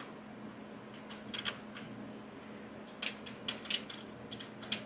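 Light metallic clicks and clinks from a ratchet wrench snugging down intake manifold bolts by hand, not torqued. They come in irregular runs, with a cluster about three seconds in, over a faint steady hum.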